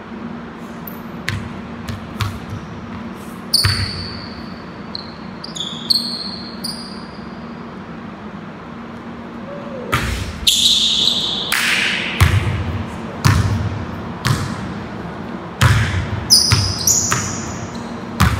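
Basketball bouncing on a hardwood gym floor, echoing in the hall, with short sneaker squeaks on the court. The bounces are scattered in the first half; from about ten seconds in they come close together as steady dribbling.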